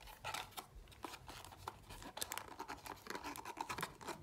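A small paperboard box being handled and opened by hand: crisp rustling and scraping of card against card, with a quick run of small taps and scuffs.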